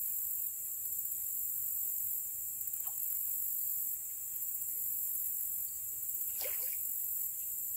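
Steady high-pitched chorus of insects, with a brief faint sound about six and a half seconds in.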